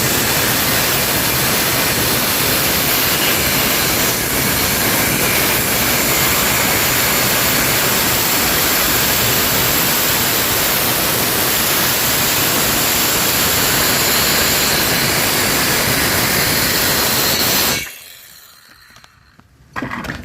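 Electric power saw cutting through a 2x10 wooden board, running steadily and loudly for about eighteen seconds and then stopping suddenly, followed by a few knocks near the end.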